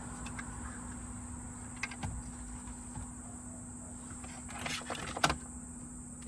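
Plastic wiring-harness connectors and the car stereo's wiring being handled behind the dash: scattered rustles and clicks, with a cluster near the end and one sharp click about five seconds in. A steady high whine and a low hum run underneath.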